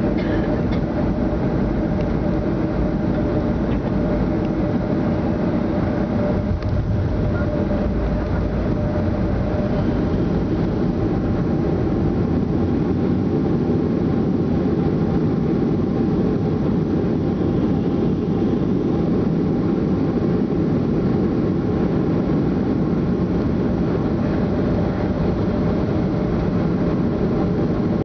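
Cabin noise of a Boeing 757 rolling on the ground after landing, heard from a seat over the wing: a steady rumble from the jet engines and wheels, with a thin steady tone that fades about seven seconds in.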